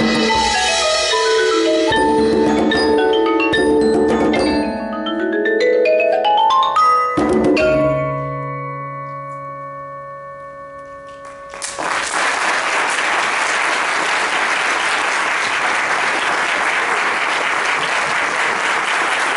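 Mallet percussion ensemble of marimba, glockenspiel and other keyboard percussion playing fast rising and falling runs, ending on a final struck chord about seven seconds in that rings and fades away. About twelve seconds in, audience applause starts and carries on.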